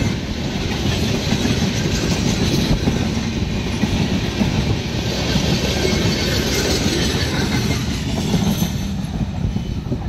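A passenger train of red LHB coaches running past close by, a steady loud noise of steel wheels on the rails.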